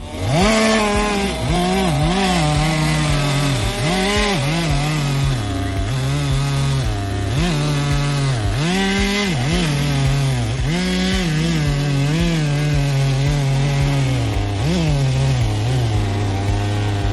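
Two-stroke chainsaw cutting wood. Its engine note dips again and again as the chain bogs into the cut, then climbs back, about once a second, and settles lower and steadier near the end.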